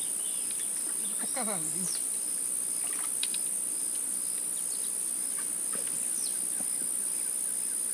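A steady, high-pitched insect chorus shrilling without a break, with a brief falling pitched call about a second and a half in.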